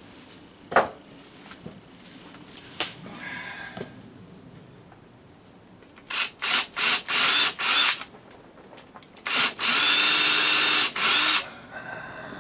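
A couple of wooden knocks as a wooden frame is set down on the bench, then a cordless drill driving screws into the frame. First there are several short trigger bursts, then one longer steady run of about two seconds near the end.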